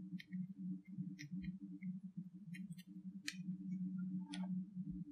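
Scattered small clicks and ticks of a tiny screwdriver and loose screws being handled while the screws are backed out of a laptop's metal bottom panel, over a low steady hum.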